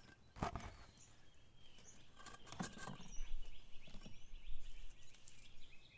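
Faint outdoor background with scattered distant bird chirps and a few light knocks.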